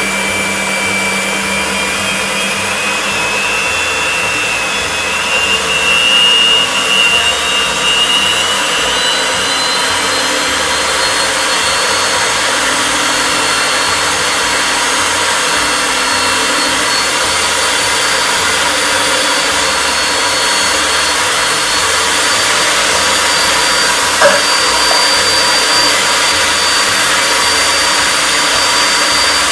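Electric stand mixer running steadily, beating cake batter as milk is added a little at a time. Its whine rises slowly in pitch over the first half, then holds steady.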